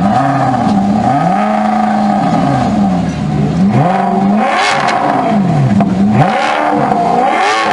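Alfa Romeo 8C Spider's 4.7-litre V8 revved while stationary: about three revs, each rising in pitch and dropping back, the later two harsher at their peaks.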